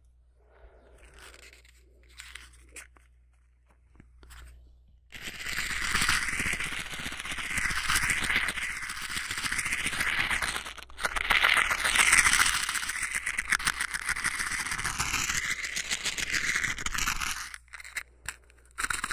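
Velcro (hook-and-loop) being slowly ripped apart, a long continuous rasping tear with a fine rapid crackle that starts about five seconds in, pauses briefly midway and stops near the end, its tone sweeping as it moves close around the microphone. Before it come a few faint light clicks of handling.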